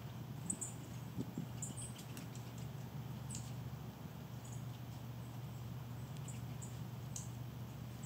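Small songbirds giving short, very high, thin call notes, scattered singly and in pairs, over a steady low hum.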